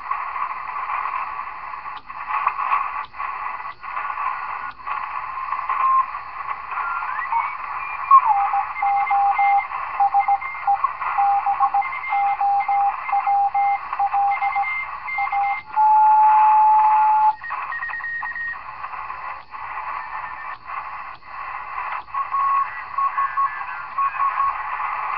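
Cobra 148F CB radio, converted to the 40-meter ham band, receiving through its speaker as it is tuned across the band. It plays a hiss of band noise with sharp static crackles and short tones keyed on and off like Morse code. Two thirds of the way through, a steady whistling tone holds for about a second and a half.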